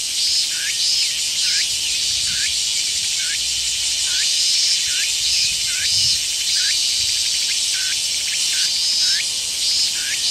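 Insect chorus: a steady, high-pitched buzz with a short chirping call repeating about every half second.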